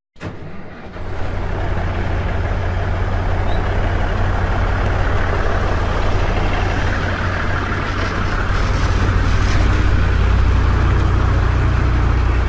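A heavy diesel engine running steadily with a low, even hum.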